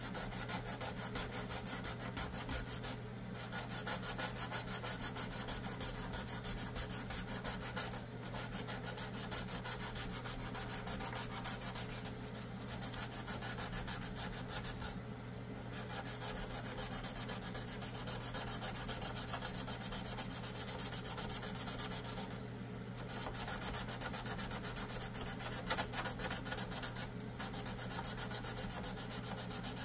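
Hand-sanding a small carved wooden fishing lure body with a sanding sponge: quick back-and-forth rubbing strokes, broken by brief pauses every few seconds.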